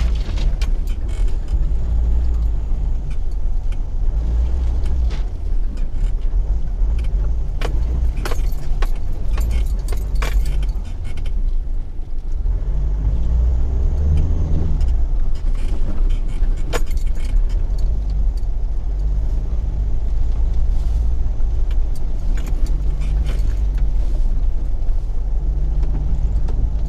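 Cab of a Mitsubishi Triton ute driving over a bumpy track: a steady low engine and tyre rumble, with scattered clicks and rattles from the vehicle. There is a squeak that the driver wants to stop and check.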